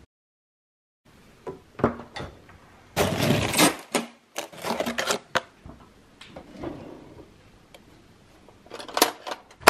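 After about a second of silence, kitchen handling noises: plastic food containers knocked and shifted in a fridge, then metal cutlery clinking in a drawer as a spoon is picked out near the end.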